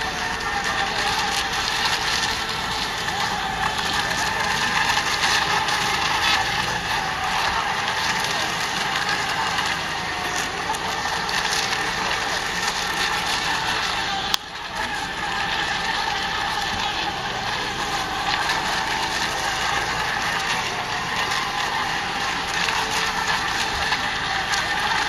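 Several electric ECO MINI class RC racing boats running at speed together, a steady high motor-and-propeller whine with some hiss. The sound cuts out for an instant about halfway through.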